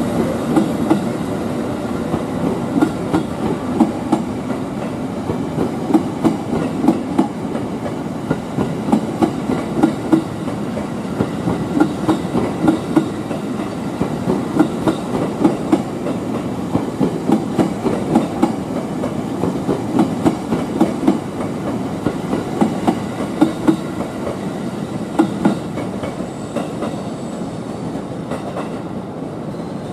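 Nine-car E257 series electric train being hauled past by an EF81 electric locomotive, its wheels clacking over the rail joints in repeated clusters over a steady rolling rumble. The clacking grows fainter near the end as the train draws away.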